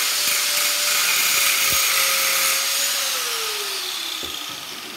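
Angle grinder with a cutting disc running at speed, the disc held against a cast aluminum vacuum handle frame: a steady high whine with hiss. About three seconds in it is switched off, and the whine falls in pitch and fades as the disc spins down.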